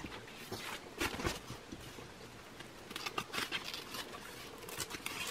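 Small scissors snipping through a paper napkin glued to a sheet of paper, with crisp paper crackle. It comes in short spells about a second in and again about three seconds in, with a few lighter snips near the end.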